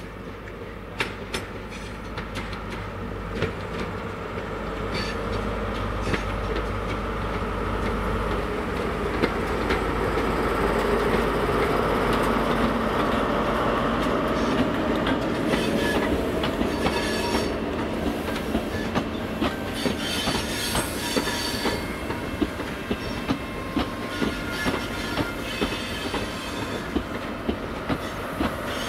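First Great Western High Speed Train (InterCity 125) passing: the Class 43 diesel power car's engine hum at first, then the Mark 3 coaches rolling by with a rhythmic clickety-clack of wheels over rail joints, about one to two clicks a second, and some high-pitched wheel squeal in the second half.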